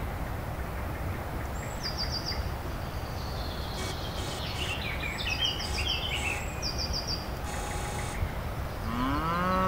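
Rural outdoor ambience: a steady low rumble, small birds chirping in short repeated trills, and a farm animal calling once near the end.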